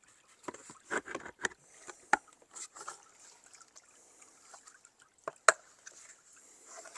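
Plastic wildlife ramp parts knocking and clicking as they are handled and fitted to the pond, with the sharpest click about five and a half seconds in. Under them, water trickles faintly as the pond fills.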